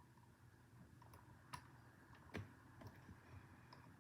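Faint, scattered clicks of a steel hook pick tapping and scraping on the pins and warding inside a Federal 95 padlock's keyway, about five in all, the loudest about two and a half seconds in.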